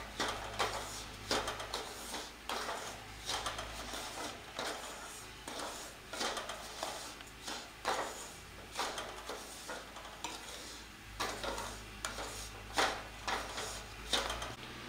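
Wooden spatula stirring and scraping semolina (rava) around a nonstick pan as it roasts in ghee, an irregular run of short scraping strokes a couple of times a second. The rava is being roasted until hot through but not browned.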